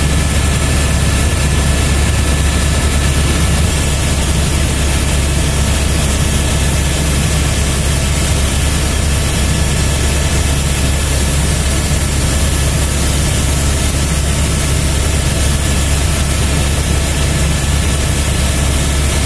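Helicopter cabin noise in flight: a steady, loud low drone of the rotor and engine, with a few faint steady whines above it.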